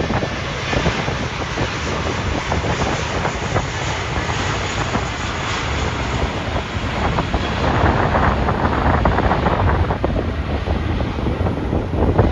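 Jet airliner engine noise, a steady dense rush, with gusting wind buffeting the microphone; it grows louder about eight seconds in.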